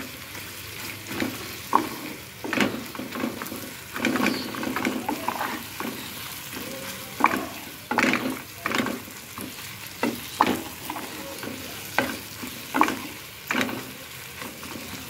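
Spatula stirring and scraping an onion-and-egg mixture around a metal pan, irregular scrapes and knocks over a steady sizzle of frying.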